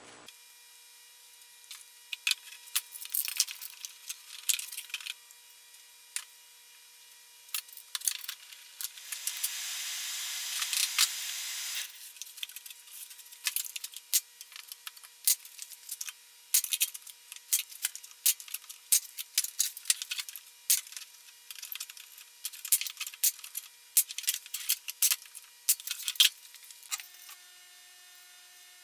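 Rapid clicks and knocks of bar clamps, a nail gun and pine boards being handled while cabinet shelves are glued and clamped. A steady hiss runs for about three seconds near the middle, and a faint steady high tone sounds underneath.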